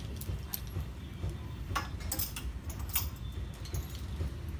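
Clothes hangers clicking against a garment rail as clothes are taken down and moved on the rack: a few irregular sharp clicks over a steady low rumble.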